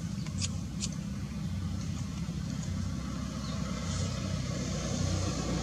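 A motor vehicle engine running with a steady low rumble that slowly grows louder toward the end, with two short clicks about half a second in.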